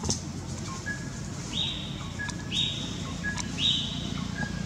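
A bird calling from the trees: three rising whistled notes about a second apart, with brief lower chirps in between.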